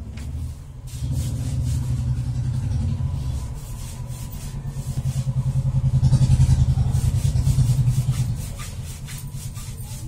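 An engine running with a low, rapidly pulsing rumble, growing louder about five seconds in and easing off again after about eight seconds.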